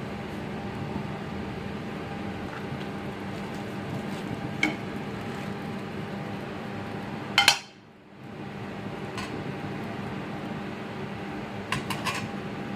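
Cookware clanking over a steady hum: a light knock about a third of the way in, one loud clatter just past halfway, then a few quick clinks near the end, as a pan of butter is handled on the stove.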